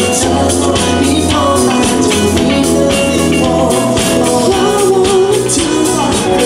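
Live band music played loud through a stage sound system, with a male singer singing into a handheld microphone over a steady drum beat.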